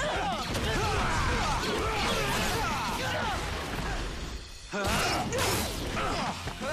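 Fight-scene soundtrack of a live-action superhero show: action music under staged combat effects, with whooshes and hit impacts. It dips briefly after about four seconds, then a loud burst of noise comes about five seconds in.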